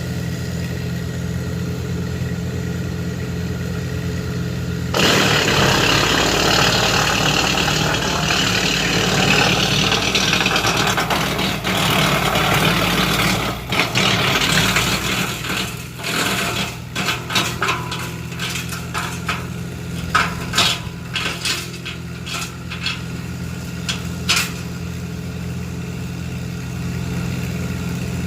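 Titan PTO-driven wood chipper running off a tractor, the engine holding a steady speed. About five seconds in, the chipper starts loudly grinding brush for several seconds, followed by a run of sharp knocks and cracks as branches are chewed. Near the end it settles back to the steady running.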